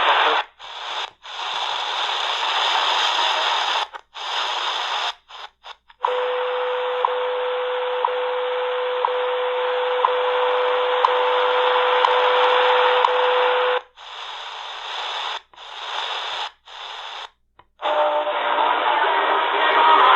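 Shortwave static and hiss from a C.Crane Skywave portable radio's speaker as it is tuned through the band, cutting out briefly several times between frequencies. For several seconds in the middle a steady tone with a faint tick about once a second sounds through the noise.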